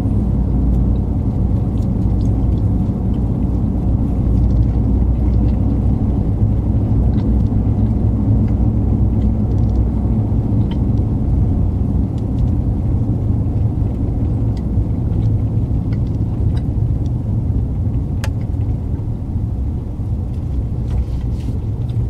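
Steady low rumble of a 2020 Ram 1500 Rebel pickup driving at low speed, under 30 mph, heard inside the cab: engine and road noise, with a few faint ticks.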